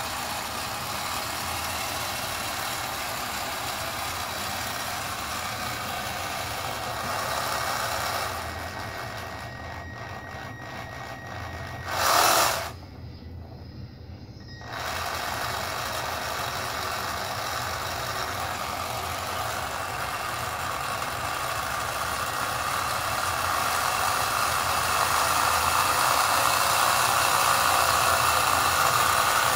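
The electric drive motor and propeller running gear of a radio-control model destroyer running steadily, almost like a small gas-powered engine and not exactly quiet. A brief loud burst comes about twelve seconds in, and the running sound grows louder over the last ten seconds.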